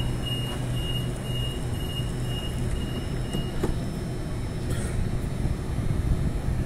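Sydney Trains electric suburban train moving slowly past: a steady low hum and rumble from the train, with a thin high-pitched whine that comes and goes in the first half.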